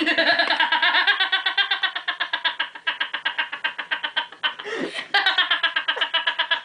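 A person laughing hard: a long run of quick, even pulses of a high voice, with a short break about four and a half seconds in before the laughter starts again.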